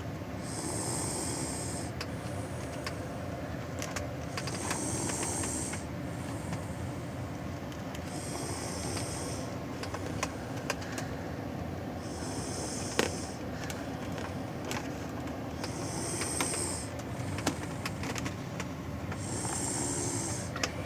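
Snoring in deep sleep: a hissing breath about every four seconds, six in all, with a few sharp clicks between them.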